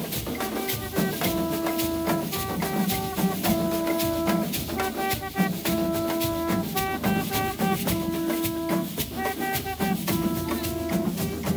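Carnival street drums and snare drums beating a fast, dense rhythm while conch shells are blown over them in a repeating call: a long held note, then a few short, slightly higher blasts, about every two seconds.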